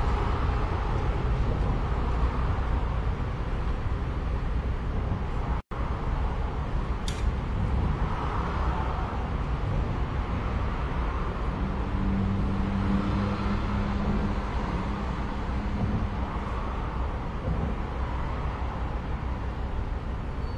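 Steady outdoor rumble of road traffic, with an engine hum held for a few seconds about twelve seconds in. The sound cuts out for an instant near six seconds.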